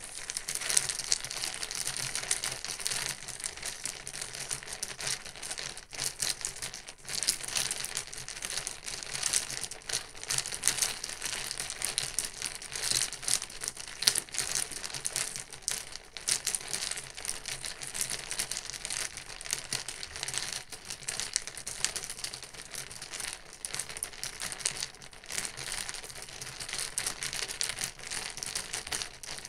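Ice cubes in water stirred with a paper straw in a thin plastic takeout cup: a continuous rattle of many small clicks as the ice knocks against the straw and the cup wall, with two brief breaks about six and seven seconds in.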